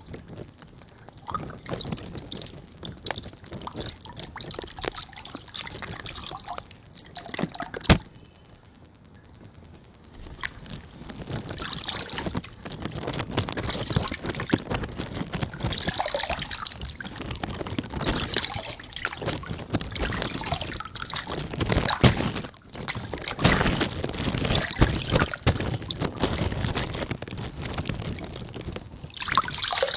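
Water balloons bursting with sharp pops now and then, and the water pouring and trickling out.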